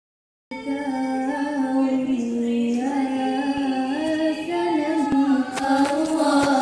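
A voice sings a slow melody with long held notes that step up and down in pitch. It starts suddenly about half a second in, like a soundtrack laid under the pictures.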